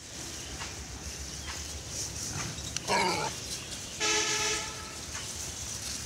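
An animal's short, sharp call about three seconds in, followed about a second later by a vehicle horn honking briefly, over steady outdoor background noise.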